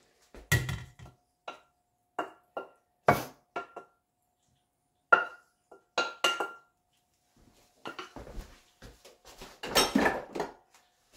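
Stainless steel skillet and spatula knocking and scraping as food is tapped out of the pan onto a ceramic plate: a string of sharp clinks, some with a brief metallic ring, then a stretch of softer clatter near the end.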